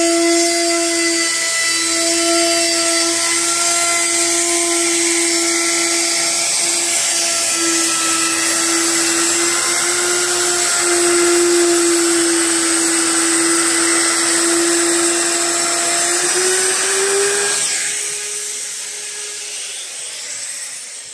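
Handheld trim router with a bearing-guided roundover bit cutting along a plywood edge, a loud steady high whine with cutting hiss. Near the end its pitch rises slightly, then it is switched off and winds down.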